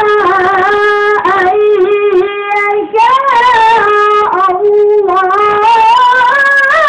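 A qori's high voice in melodic Quran recitation, holding long drawn-out notes with ornamental turns and slides in pitch.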